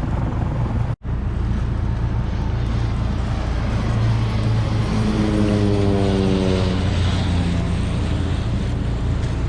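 Steady low drone of a sailboat's engine motoring along, with noise of wind and water, cut off for an instant about a second in. About halfway through, another engine's tone swells over it for a couple of seconds and slides slightly lower as it passes.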